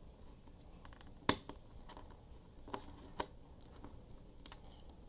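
Small plastic Lego pieces clicking as fingers press rounded 1x1 pieces onto 2x2 round plates: a few short sharp clicks, the loudest about a second in.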